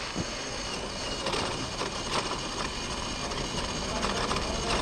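Scale RC rock crawler driven hard against a rock face: its electric motor and gearbox whir under load while its tyres spin and scrabble on rock and gravel, a dense rattling that starts and stops sharply with the throttle.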